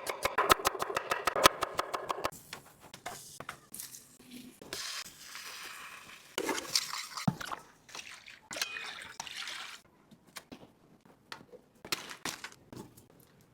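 Kitchen sounds of cooking noodles: a fast, even run of sharp taps for about two seconds, then splashing and pouring liquid with a few knocks and clinks of utensils against pots and dishes.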